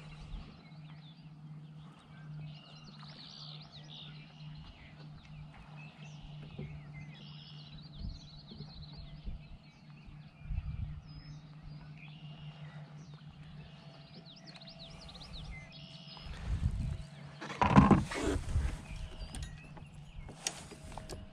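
Birds chirping and calling over a steady low hum. Near the end come loud knocks and rustling of handling close to the microphone.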